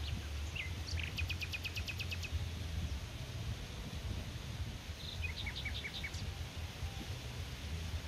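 Wild birds calling in woodland: a rapid trill of about ten quick high notes about a second in, and a shorter run of notes about five seconds in, over a steady low rumble of outdoor ambient noise.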